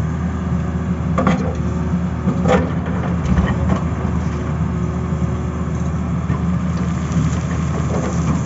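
Tata Hitachi crawler excavator's diesel engine running steadily as the machine digs, with a few short scraping knocks about one and two and a half seconds in.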